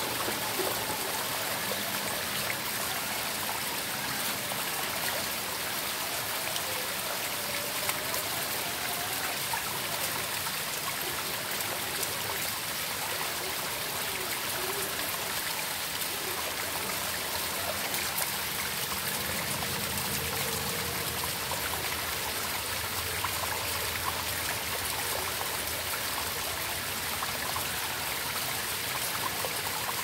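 Small waterfall and stream running over rocks: a steady rush and splash of water.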